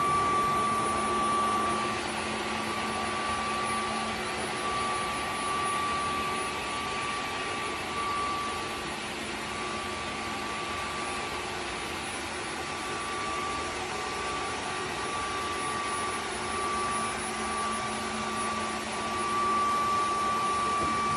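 Dreame H14 Pro wet-dry vacuum mop running in auto mode: a steady rush of suction with a high whine, a little louder in the first couple of seconds and again near the end.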